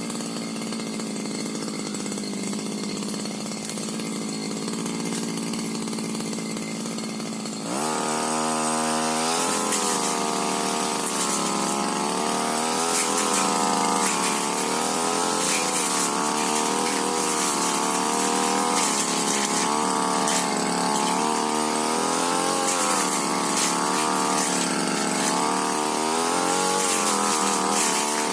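Tiger TG328 two-stroke brush cutter engine running steadily at low speed, then revved up sharply about eight seconds in. It then runs at high speed, its pitch dipping and rising again and again.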